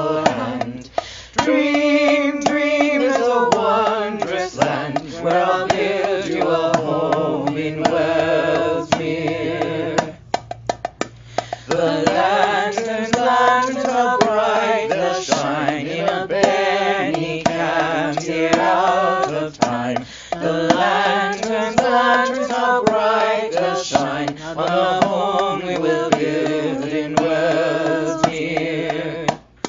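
A song playing: a voice singing a wavering melody over drums, with a short break about a third of the way in.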